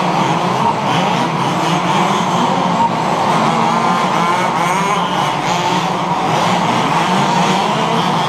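Several 1/5-scale HPI Baja RC buggies racing, their small two-stroke petrol engines revving up and down and overlapping in a continuous high-pitched whine.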